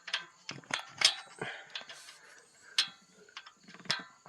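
Irregular sharp metallic clicks and taps of a wrench and screwdriver working the locknut and screw adjuster of a valve on a Kawasaki Teryx 750 V-twin, during a valve-clearance adjustment on a valve set far too tight.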